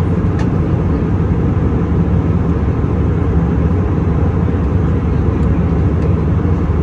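Steady, low cabin noise inside an Airbus A319 in flight: the even drone of its jet engines and the airflow over the fuselage, heard through the cabin.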